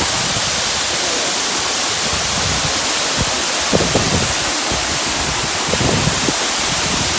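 Steady rush of a waterfall heard up close, with wind gusting on the microphone a few times.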